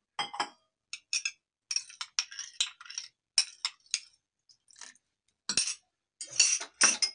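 A steel spoon scrapes and clinks against a small glass bowl as yogurt is scraped out into a larger glass bowl. There is an irregular series of light clinks, louder and quicker near the end.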